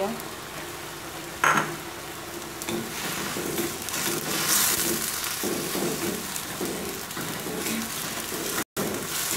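Sliced cucumber sizzling in a wok as a wooden spatula stirs it, scraping across the pan in repeated strokes, with one sharp knock about a second and a half in.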